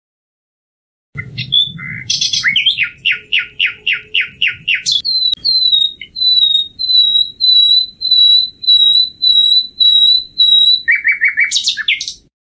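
Common nightingale singing one phrase that starts about a second in. It opens with a quick run of downslurred notes, then slows into about ten clear whistled notes on one pitch, and ends in a brief rattling trill that cuts off just before the end.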